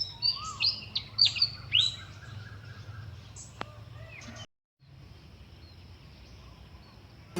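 Birds calling outdoors: a quick run of sharp chirps with fast falling notes in the first two seconds, then fainter, sparser calls over a steady low background hum. The sound cuts out completely for a moment about halfway through, then the quieter ambience returns.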